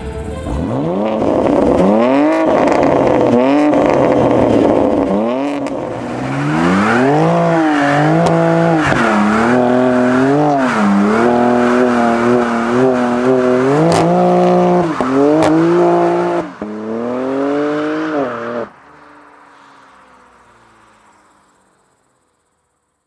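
BMW M3 G80's twin-turbo 3.0-litre S58 straight-six through a Milltek exhaust, revved hard up and down again and again with a few sharp cracks, while the rear tyres spin and smoke. The sound cuts off sharply about 19 seconds in, leaving a faint fading tail.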